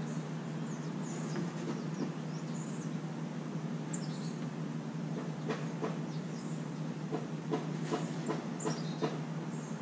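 A steady low mechanical hum with short, high chirps of birds over it, and a few faint taps in the second half.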